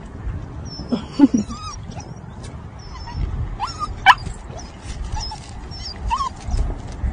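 A puppy whining and yipping in several short, sliding high calls, the loudest about four seconds in, as it begs for a treat.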